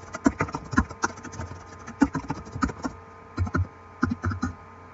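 Typing on a computer keyboard: irregular keystrokes, quickest in the first three seconds, then a short pause and two more small runs of keys.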